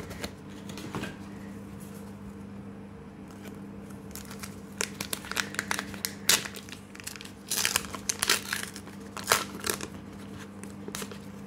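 A Pokémon card booster's wrapper and paper sleeve crinkling and tearing as they are pulled open by hand, in irregular bursts of crackles that are busiest in the second half.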